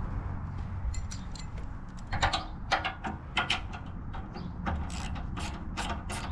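Ratchet wrench clicking in repeated strokes as a motorcycle fuel-tank bolt is loosened, about two to three clicks a second over a low steady rumble.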